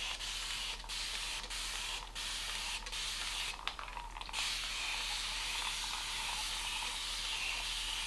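Spray bottle misting water onto hair, a steady hiss broken by short pauses between squeezes about every 0.7 s, then a longer pause around the middle and one unbroken spray of about four seconds, soaking the hair until it drips.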